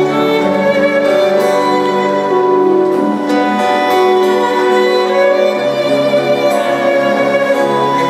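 Live band playing an instrumental passage of a folk ballad, with acoustic guitar strumming under long held melody notes.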